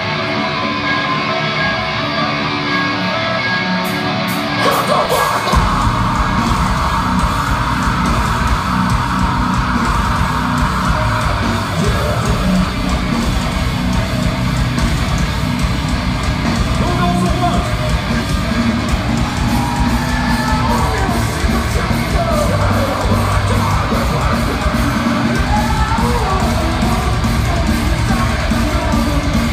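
Live rock band playing loudly through the PA, heard from the crowd: electric guitars, drums and vocals, with the full band's drums and bass coming in about five seconds in.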